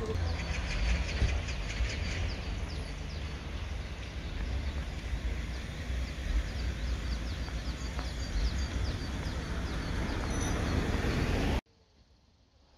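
Outdoor ambience of small birds chirping over and over above a low rumble of wind on the microphone. The sound cuts off suddenly near the end.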